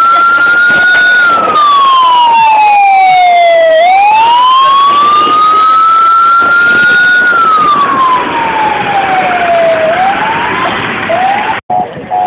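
Emergency vehicle siren wailing, its pitch slowly climbing for about three seconds and then sliding down for about two and a half, twice over. It weakens after about eight seconds and cuts out briefly near the end.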